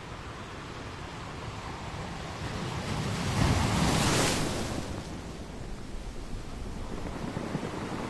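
Ocean surf on a beach. A wave builds and breaks about three and a half seconds in, the loudest point, then the wash fades back into steady surf.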